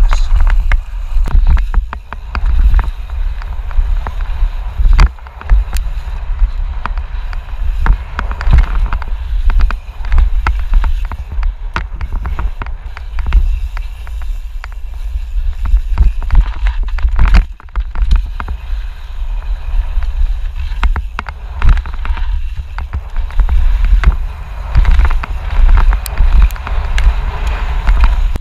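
Mountain bike riding fast down a rough dirt trail: wind buffets the camera microphone with a deep, constant rumble, over many sharp knocks and rattles from the bike hitting bumps and roots.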